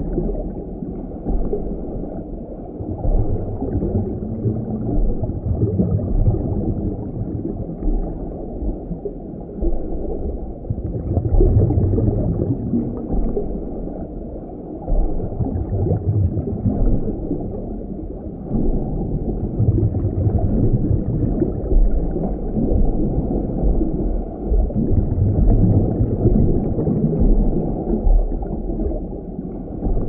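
Underwater sea ambience: a muffled, low rumble and gurgle of moving water heard through an underwater microphone, swelling and easing every few seconds.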